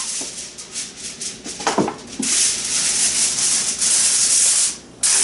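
Aluminium foil crinkling and crackling as it is torn off and pressed over a baking dish, heaviest over the second half and stopping just before the end.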